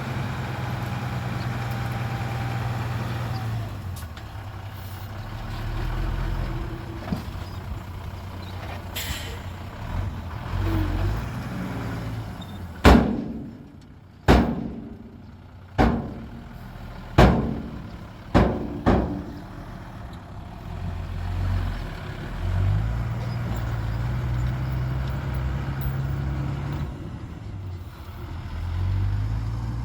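Heavy diesel engines of earthmoving machinery running steadily, with six loud bangs, each dying away briefly, a little over a second apart midway through.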